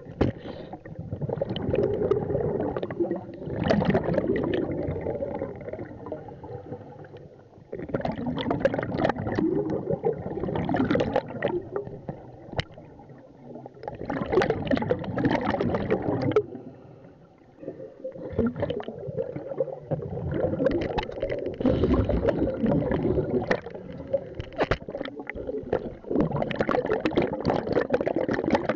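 Scuba regulator exhaust bubbles heard underwater: a diver breathing out in bubbling bursts of two to three seconds, recurring every five seconds or so, with quieter gaps between for the inhalations.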